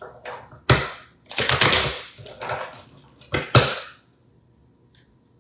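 A deck of oracle cards being handled and shuffled: sharp card slaps and taps with papery rustling between them, stopping about four seconds in.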